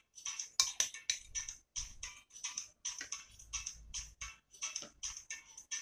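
Rapid, uneven high-pitched ticking, several ticks a second, with a few low dull thumps in between.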